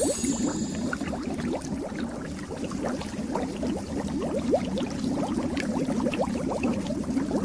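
Cartoon underwater bubbling sound effect: a dense, steady stream of small bubbles, each a quick upward blip. A brief high twinkling shimmer fades out at the start.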